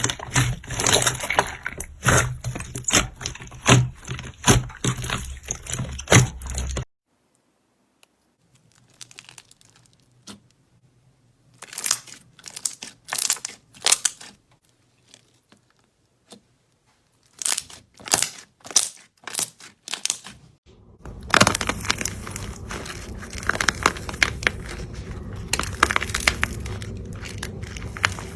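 Slime being squeezed and pressed by hand, giving dense crackling and popping clicks. In the middle the sound drops almost to nothing, with only short bursts of clicks, before steady crackling returns near the end.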